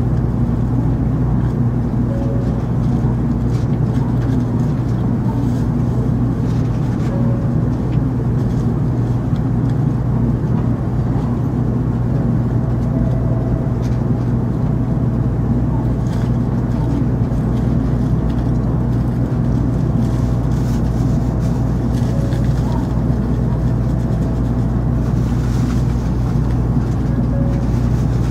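Steady low hum inside an N700 series Shinkansen car standing at a platform. A faint thin high tone sits over it through the middle stretch.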